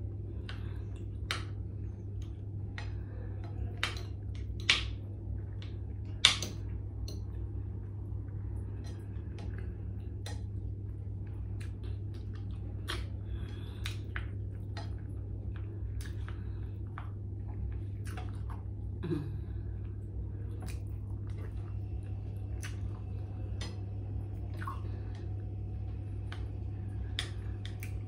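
A person eating: chewing, with a spoon and fork clinking and scraping against ceramic bowls in many short sharp clicks, two of them louder about five and six seconds in. A steady low hum runs underneath.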